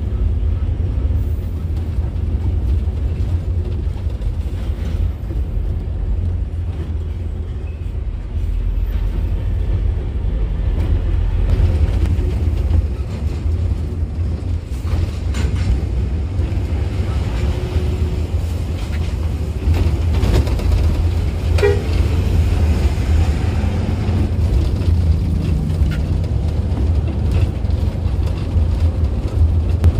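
Steady low rumble of an intercity bus's engine and tyres on the road, heard from inside the cabin, with a few light knocks.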